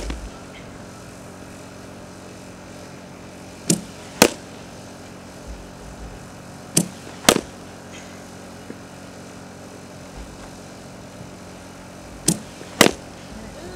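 Fastpitch softball bat hitting pitched balls four times, a sharp crack every few seconds. Each of the later hits follows a fainter click about half a second before it, and a steady low hum runs underneath.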